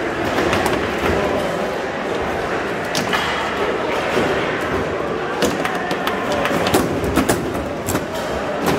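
Foosball being played: the ball knocking off the plastic players and the table walls, with rod handles clacking, a series of sharp knocks that come closer together in the second half. Under them runs a steady background din.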